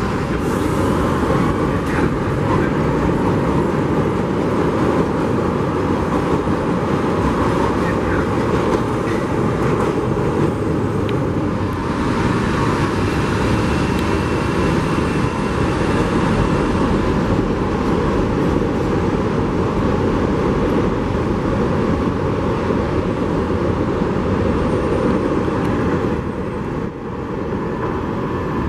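Chicago 'L' 5000-series rapid transit cars running at an elevated station: a steady noise of steel wheels on the rails and the cars' motors, with a few faint squeals. The noise eases briefly near the end.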